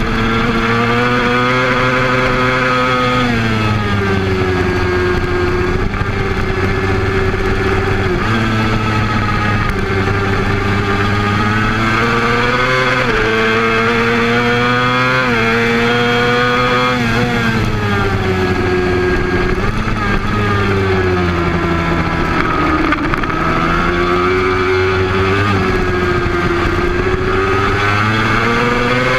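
Honda race motorcycle engine at racing speed, its note climbing hard, dropping suddenly and sweeping down again and again as the rider accelerates, shifts and brakes for corners, with wind rushing over the microphone.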